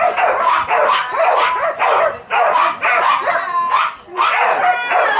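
Flyball dogs barking rapidly, one bark after another with hardly a pause, briefly dropping off twice.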